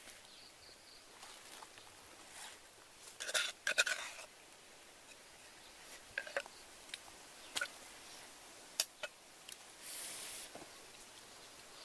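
Light clicks and scrapes of hand food preparation: a wooden spoon knocking and scraping in a wooden mortar, bunched about three to four seconds in, then single clicks every second or so and a brief hiss about ten seconds in.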